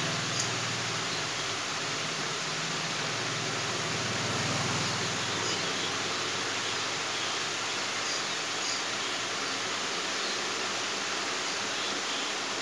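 Chaoba 2800 hair dryer running steadily: a constant rush of blown air over a low motor hum.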